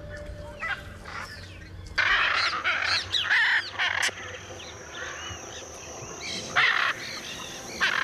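Hyacinth macaw calls: loud squawks with rising and falling pitch, coming in bursts. The first begins about two seconds in, another follows later, and a shorter one comes near the end.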